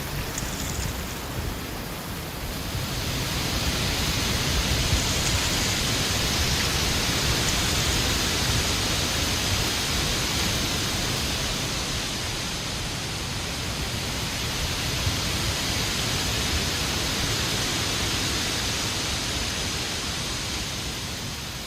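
Strong autumn wind blowing in gusts, a steady rushing that swells and eases twice, with a low rumble of wind buffeting the microphone.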